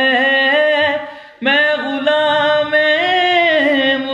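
Unaccompanied voice singing a naat, drawing out long wavering notes. The voice fades away about a second in and comes back in sharply about a second and a half in.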